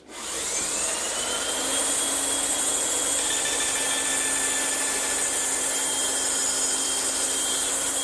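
Bandsaw with a 1-inch blade starting up, a whine rising in pitch over the first second, then running steadily as it cuts the top and bottom edges of a wooden tenon.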